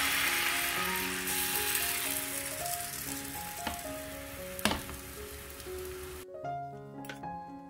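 Chickpea-flour pancake batter sizzling in a hot frying pan. The sizzle fades gradually and stops abruptly about six seconds in, with a sharp click a little past the middle. Background music plays throughout.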